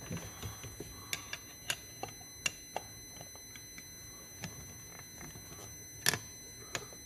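Scattered light metallic clicks and taps of a screwdriver tightening the throttle position sensor's screws on a snowmobile carburetor, at irregular intervals, with one louder knock about six seconds in.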